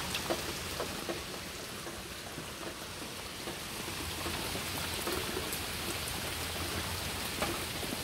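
Steady rain falling, a hiss with scattered light ticks of drops.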